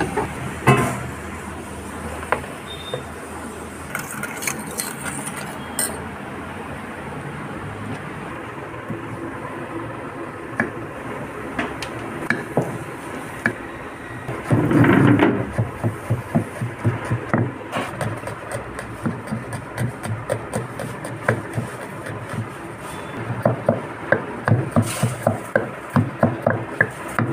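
A kitchen knife chopping green chillies on a wooden cutting board. Sharp knocks start about halfway through at two or three a second and come faster and closer together near the end, over a steady background noise.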